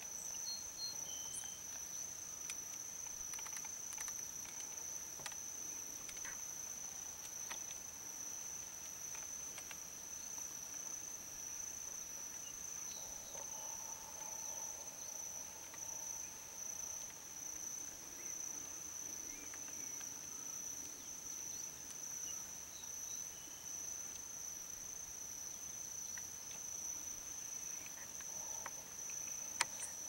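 Steady, unbroken high-pitched insect buzz, an outdoor chorus of insects, with a few faint brief chirps and ticks and one sharp click near the end.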